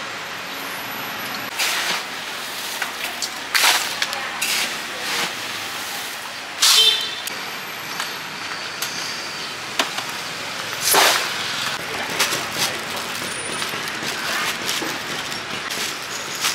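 Steady hiss of stir-frying in a wok at a street-food stall, with a few sharp metallic clanks and scrapes, one of them ringing briefly.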